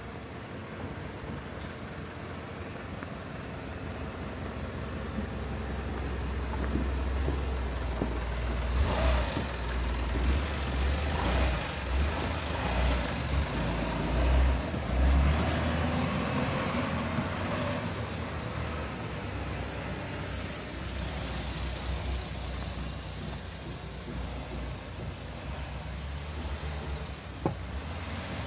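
A motor vehicle driving past on a street. Its low engine rumble swells to its loudest in the middle and then fades away over steady street noise.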